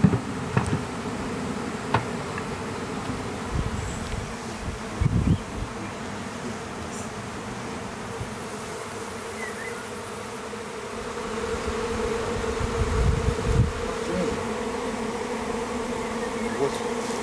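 A swarm of honeybees buzzing in a steady drone that swells louder about twelve seconds in. A few dull low thumps come through the buzzing.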